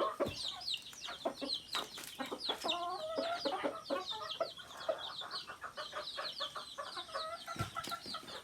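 Native chickens clucking, with a constant high, rapid peeping of chicks over the top and a few lower hen calls about three seconds in.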